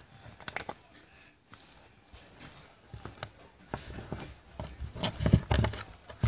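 Cat pawing at a plastic stick poked under furniture: scattered taps, scratches and scuffles on the carpet, turning into heavier thumps and rustling about five seconds in.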